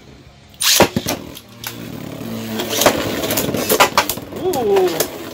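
Two Beyblade Burst tops, Guilty Longinus and Dynamite Belial, launched into a plastic stadium with a sharp rip about a second in. They then whir and scrape as they spin, with occasional clacks as they hit each other.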